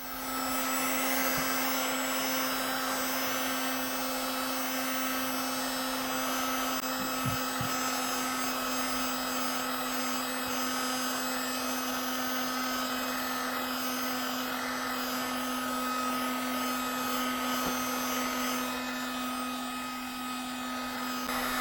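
Electric heat gun running steadily, a blowing fan noise with a constant low hum, warming the headlight lens edge to soften the sealant so the lens can be prised off. It switches off abruptly at the end.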